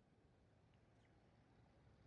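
Near silence: a faint low background rumble, with two faint, brief high chirps about a second in.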